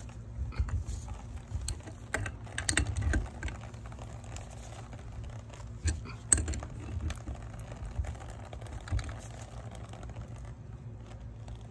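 Adjustable wrench clicking and tapping against a brass hose bib as it is turned on a threaded galvanized fitting, in irregular small knocks with a sharper one about six seconds in, over a low steady rumble.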